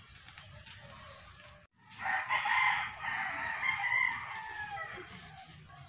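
Rooster crowing: one long call that starts about two seconds in and trails off, falling in pitch near the end.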